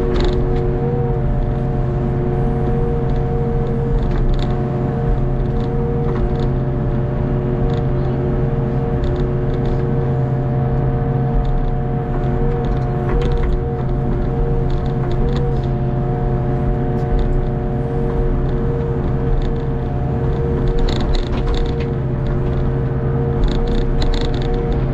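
Hitachi ZX48U mini excavator's diesel engine and hydraulics running steadily under digging load, a low hum with a steady whine above it that wavers briefly as the controls shift. Short clicks come through now and then.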